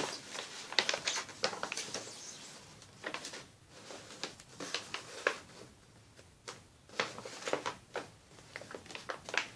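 A large folded paper sheet rustling and crackling as it is unfolded and smoothed flat by hand, in scattered crackles.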